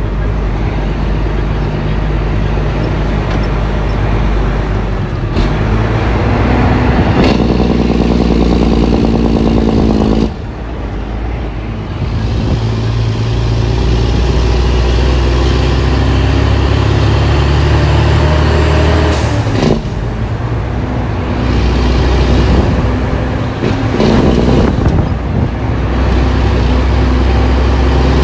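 Heavy dump truck's diesel engine heard from inside the cab while driving, running under load. The engine note drops off briefly about ten seconds in and changes again around twenty seconds, as gears are changed.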